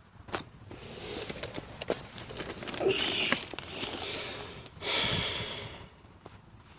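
Rustling and handling noise in two louder stretches, with scattered sharp clicks.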